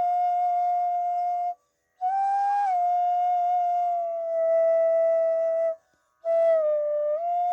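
Flute playing long, held notes of a slow melody in raga Bhairav, stepping between pitches, with two short breaks in the playing, about a second and a half in and just before six seconds.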